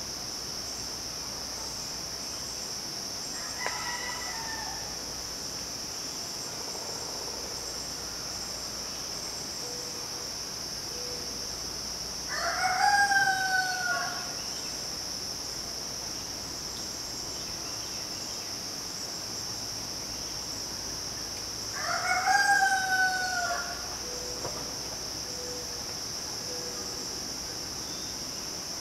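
Rooster crowing twice, about ten seconds apart, each crow lasting about a second and a half, over a steady high drone of midsummer insects. A shorter, fainter call comes about four seconds in.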